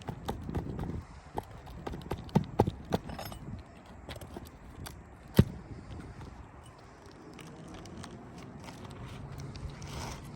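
Hammer striking a roofing snake worked under asphalt shingles to cut out the nails: a series of sharp, irregularly spaced knocks, the loudest about five seconds in, with quieter handling and scraping between.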